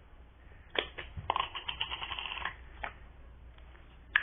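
Two slimes being pressed and mixed together by hand, giving a run of rapid crackling, popping clicks for about a second. Single sharp clicks come just before it and near the end.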